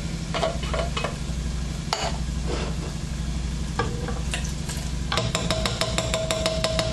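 Wooden spoon knocking and scraping inside a tin can of diced tomatoes as it is emptied into a pot of ground beef, with scattered knocks, then a rapid run of taps from about five seconds in. A steady low hum runs underneath.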